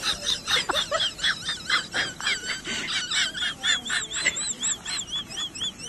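Rapid, high-pitched chirping and twittering, like small birds calling: many short chirps a second, some warbling up and down in pitch.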